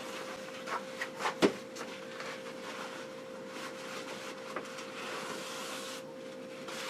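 A faint steady hum with a few light clicks and knocks. The sharpest knock comes about one and a half seconds in.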